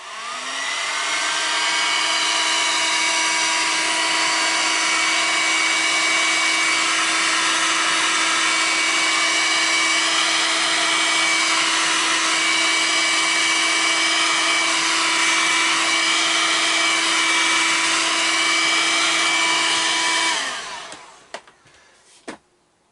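Electric heat gun running: its fan motor spins up with a rising whine, blows a steady hiss of air for about twenty seconds while shrinking heat-shrink tubing over a soldered wire joint, then winds down and stops.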